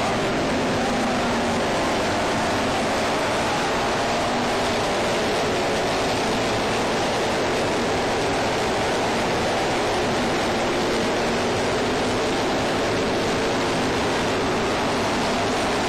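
Engines of several classic racing motorcycles running as they lap, their pitches faintly wavering under a heavy, steady hiss.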